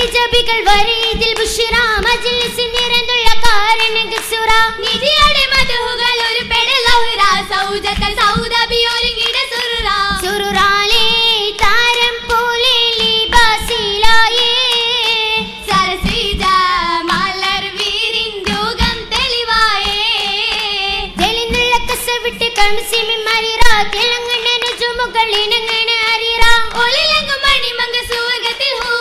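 Girls' voices singing an oppana song, with sharp hand claps striking the rhythm throughout.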